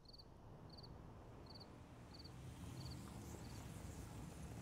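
Cricket chirping: six short pulsed chirps, evenly spaced about two thirds of a second apart, growing fainter and stopping about three and a half seconds in, over a faint steady hiss and low rumble.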